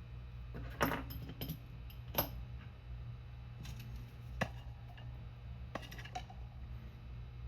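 Light, sharp metallic clicks and taps of small tools and tiny metal parts being handled inside an iPhone 14 as its connector covers are fitted back, scattered irregularly a second or two apart.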